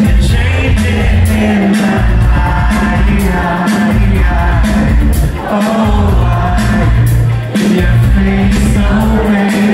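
Indie rock band playing live at full volume, with a singer over heavy bass, drums and guitars, heard from among the audience. The bass drops out briefly a few times.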